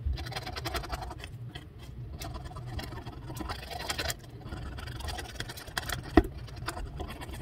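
Yellow wooden pick scratching and scraping caked dirt off the face of a 1914 wheat cent in quick, irregular scratches, with one sharper click about six seconds in.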